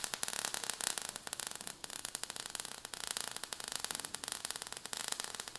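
Sound effect of crackling sparks: a steady fizzing crackle of many tiny irregular clicks over a hiss.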